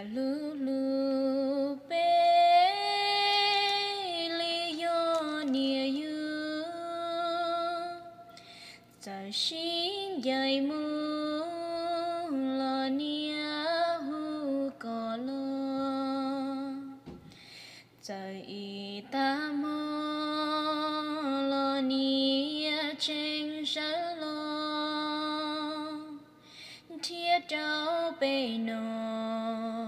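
A woman's voice singing slowly in long, wavering held notes that slide between pitches, in phrases of several seconds broken by short breaths.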